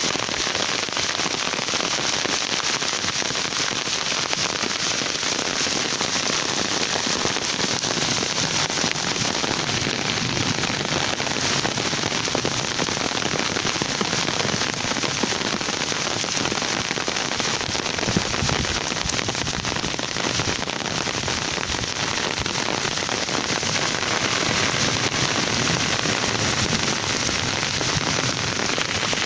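Steady rain falling on open farm fields: a dense, even hiss made of many fine drop impacts.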